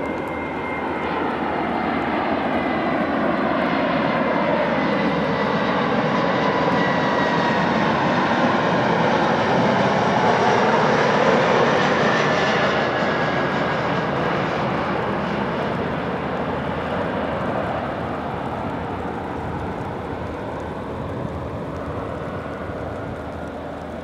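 Landing Embraer regional jet's twin turbofan engines on approach with gear down. The noise swells as it passes low overhead about halfway through, then fades away with a slowly falling whine.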